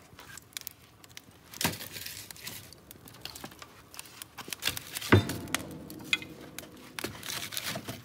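Split firewood being loaded into an open cast-iron wood stove: scattered knocks and small clicks of logs and gloved hands against the firebox. The loudest is a sharp knock about five seconds in that rings briefly.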